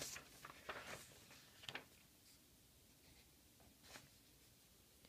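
Faint rustles of paper sheets being handled and shifted on a desk: a few brief soft ones in the first two seconds and one more about four seconds in, otherwise near silence.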